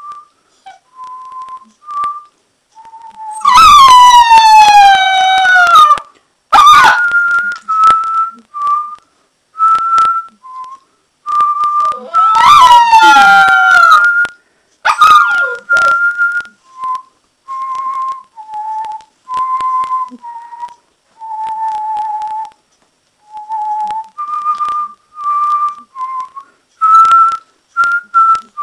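Alaskan Malamute puppy howling in answer to a person whistling short, steady notes. The puppy's howls are loud and slide down in pitch, with the longest about three and a half seconds in and another in the middle. Between them the whistled notes carry on alone.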